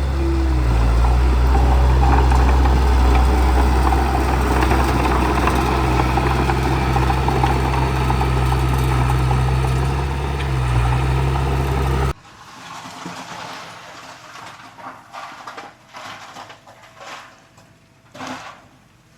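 Bulldozer's diesel engine running steadily with a deep, even drone. About twelve seconds in it breaks off abruptly, leaving a quieter stretch of scattered short knocks and scrapes.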